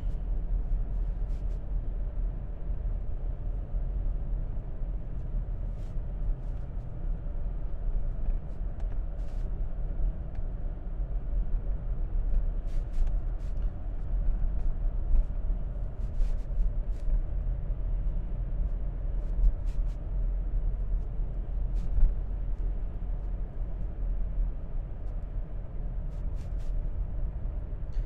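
Steady low rumble of a car driving at road speed, heard from inside the cabin, with a few faint ticks here and there.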